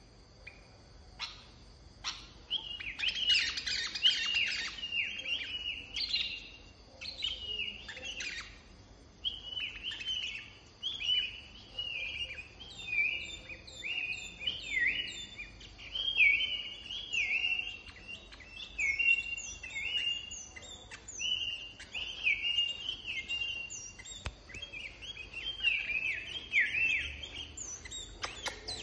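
A caged bulbul (bông lau), kept as a decoy bird, singing short chirpy phrases one after another. The song starts about two and a half seconds in and carries on with hardly a break.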